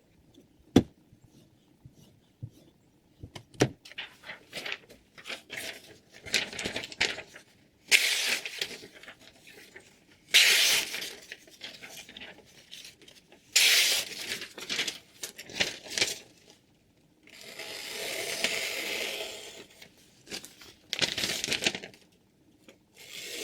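A steel knife blade scraping in a series of strokes, each a second or two long with gaps between. A few sharp clicks come before the strokes.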